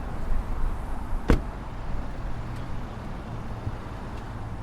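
A car door shutting once, about a second in, a single sharp thud over a steady low rumble.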